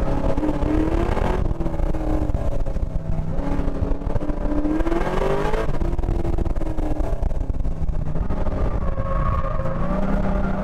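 GM LS7 7.0-litre V8 heard from on board the car under hard driving. The engine climbs in pitch for a few seconds, drops sharply about halfway in as the driver lifts or shifts, then builds again near the end.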